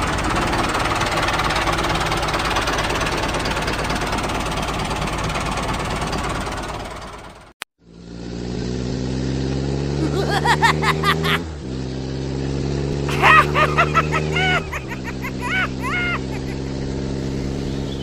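Tractor engine sound effect running loud and rough, cutting off suddenly about seven and a half seconds in. Then a steady low engine hum that breaks off briefly twice, with short high chirps over it.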